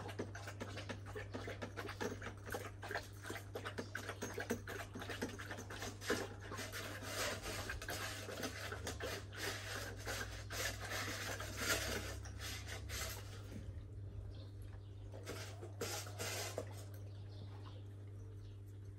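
Two young Kangal dogs eating from food bowls: busy clicking, lapping and scraping of muzzles and bowls that thins out about thirteen seconds in.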